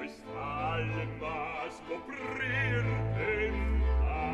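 A male opera singer singing with wide vibrato over low held notes.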